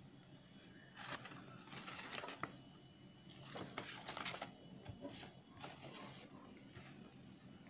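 Paper rustling as a fold-out instruction leaflet is handled and opened out, in three short bursts.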